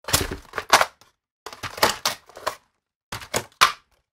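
Scissors crunching through a hard clear plastic clamshell pack, in three bursts of sharp snips and cracks about a second apart.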